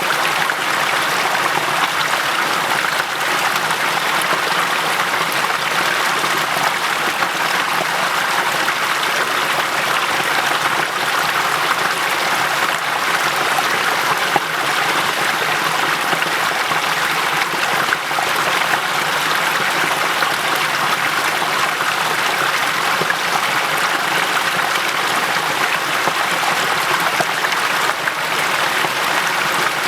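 Waterfall cascade running steadily: an even, unbroken rush of falling water.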